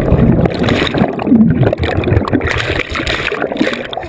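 Lake water churning and gurgling around a submerged action camera, heard muffled through its waterproof housing.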